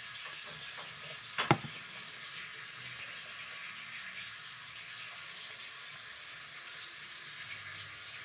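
Steady hiss of background noise, with one sharp click about a second and a half in.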